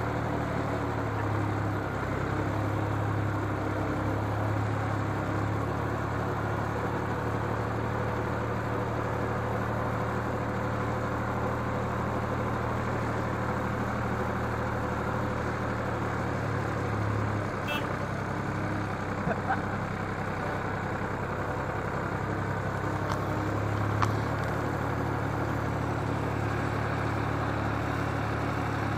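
Engine of a 4x4 off-road vehicle running steadily as it drives slowly over a rough dirt forest track. The engine note drops a little past halfway and picks up again a few seconds later, with a brief sharp knock near the end.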